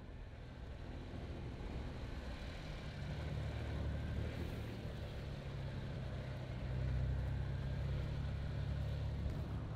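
A vehicle engine running with a low, steady hum. It grows louder over the first few seconds and is loudest about seven seconds in.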